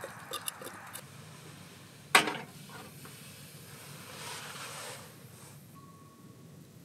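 A cooking utensil tapping and scraping inside an enamel pot of pumpkin a few times, then a single loud metallic clank about two seconds in, followed by a soft hiss.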